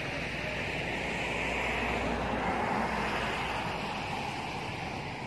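Road traffic noise: a steady low rumble that builds toward the middle and then fades, like a vehicle passing.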